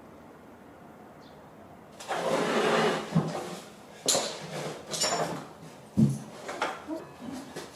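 Something scraping or sliding across a wooden surface for about a second and a half, then several sharp knocks with smaller scrapes between them.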